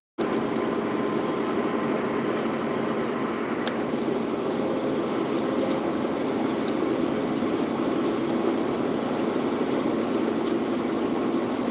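Steady engine and road noise inside a truck's cab cruising at highway speed.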